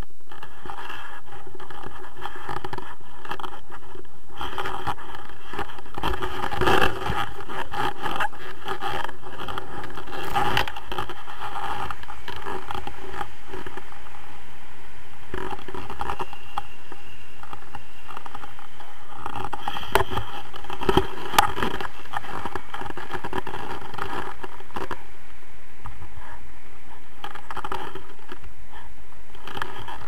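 Airflow rushing over an action camera's microphone in flight, with scraping and crackling from the camera housing and its pole mount, and a few sharp knocks about seven seconds in and twice around twenty seconds in.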